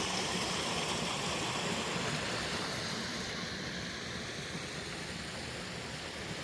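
Small desert waterfall and creek rushing, a steady noisy wash that eases off a little after about three seconds.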